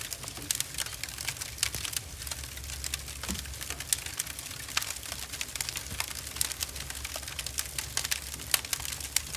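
Wood fire burning in a steel fire ring, crackling with frequent, irregular sharp pops and snaps.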